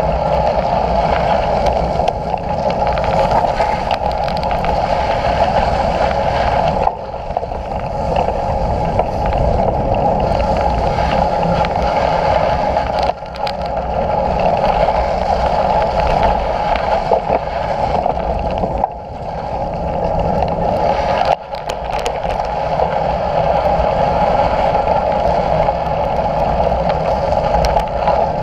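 Steady running noise of a vehicle under way, with a few brief dips.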